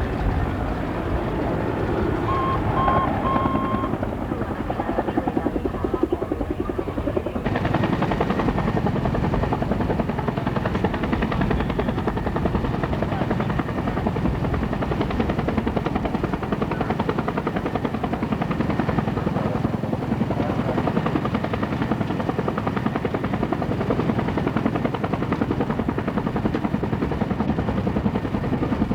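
Helicopter rotor and turbine noise with a steady, even chop. It becomes fuller and heavier about seven seconds in, and three short high beeps sound a couple of seconds in.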